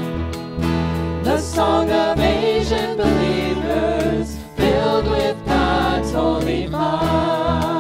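A worship song: voices singing held notes with vibrato over instrumental accompaniment and a steady bass.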